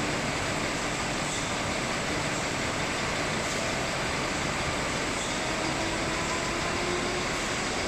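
Steady mechanical noise of a bottled-water production line running: the shrink-wrap packing machine and its conveyor carrying film-wrapped bottle packs, an even, unbroken din.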